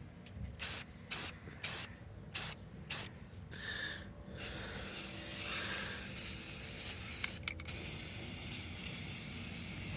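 Aerosol spray-paint can spraying: about five short hissing bursts, then a long continuous spray from about four and a half seconds in.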